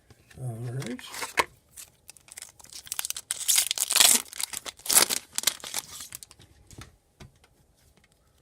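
A foil trading-card pack wrapper being torn open and crinkled, a run of ripping and crinkling noises that is loudest in the middle.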